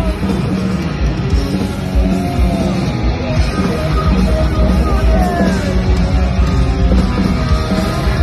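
Loud heavy metal rock music with distorted electric guitar, playing without a break.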